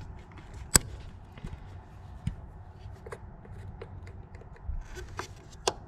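Hands working a plastic coil-pack connector clip loose on a 5.0 Coyote V8 engine: light rubbing and scattered small clicks, with a sharp click a little under a second in and another near the end.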